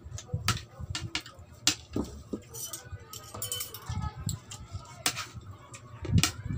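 Eating sounds: a spoon and fork clinking now and then against a plate of rice, with chewing and mouth sounds between the clinks.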